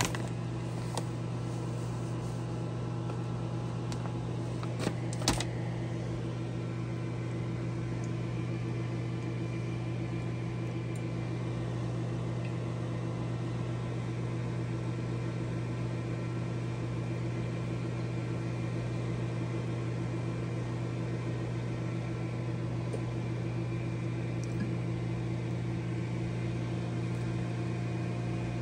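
Steady low electrical hum, with a couple of light clicks about five seconds in.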